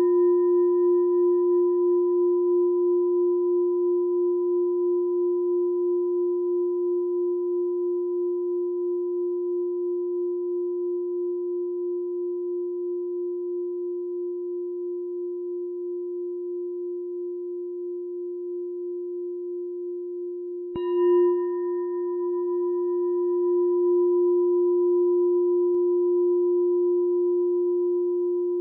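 Meditation bell ringing with a deep, slowly fading tone and fainter higher overtones that waver slightly. It is struck again about 21 seconds in and rings on.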